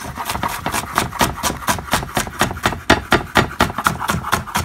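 Chef's knife chopping an onion on a wooden cutting board: rapid, even knocks of the blade on the board, about five a second.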